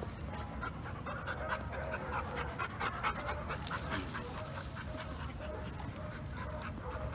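A dog panting in short, even breaths, several a second.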